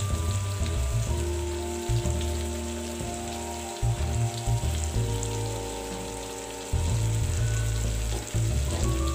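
Tomatoes and ground spices frying in oil in a kadai, a steady crackling sizzle, under background music of held notes that change every second or two.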